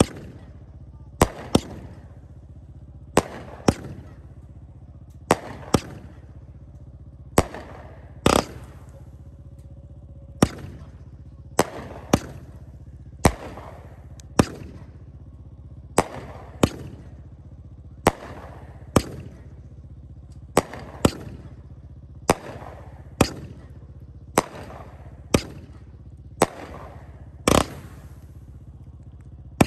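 Sky Song Fireworks 'Twilight' 45-shot consumer cake firing its shots: sharp bangs about one a second, often two in quick succession.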